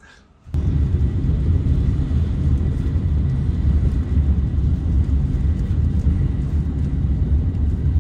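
Steady low rumble of a moving vehicle heard from inside while crossing a steel truss bridge, starting abruptly about half a second in.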